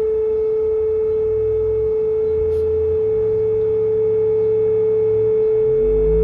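A steady, pure electronic sine-wave tone at one pitch, a little below 500 Hz. Fainter low tones underneath shift in steps and glide upward near the end.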